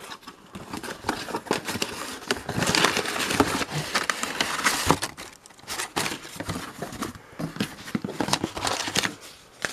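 Cardboard box being opened by hand and brown packing paper inside crumpled and rustled while rummaging through it, with irregular crackles and a few sharp clicks.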